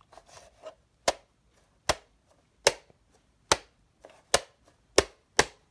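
A fire alarm device being struck again and again: sharp hard knocks, about one a second at first and coming faster near the end.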